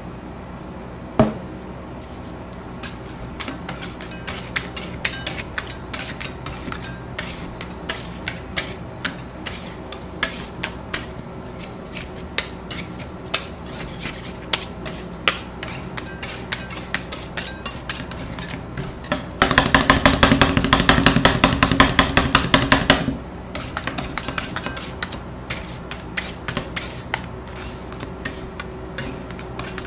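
Flat metal spatulas tapping and scraping on a stainless-steel ice-cream cold pan as liquid milk is chopped and spread to freeze for rolled ice cream. Quick, uneven clicks of the blades on the steel, with one sharp knock about a second in and a dense run of fast scraping strokes, the loudest part, for about four seconds past the middle.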